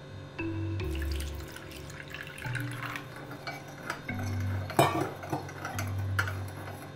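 Warm water poured into a ceramic cup over yeast and sugar, then a metal teaspoon stirring and clinking against the inside of the cup, with one sharper clink about five seconds in.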